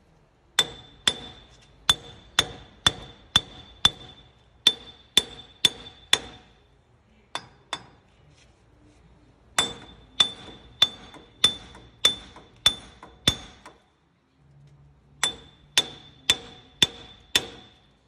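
Hammer blows on a rusted, seized front hub and wheel bearing assembly of a 2009 Toyota Tacoma 4WD, beating it loose from the steering knuckle. The blows come about twice a second in three runs separated by short pauses, and each one is a sharp metallic clang with a short ring.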